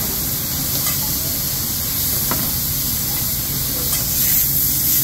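Cubes of meat sizzling on a hot steel hibachi griddle: a steady hiss, with a couple of faint clicks.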